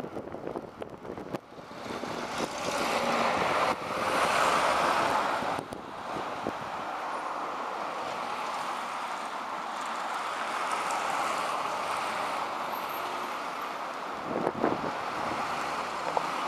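Road noise of a moving bus heard from inside: engine and tyres in a steady rush that swells a few seconds in, then settles, with a short knock near the end.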